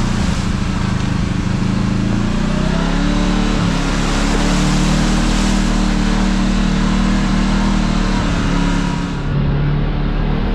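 Kawasaki KRX side-by-side's engine running on the trail, its note shifting up and down with the throttle, over a steady wash of road and wind noise.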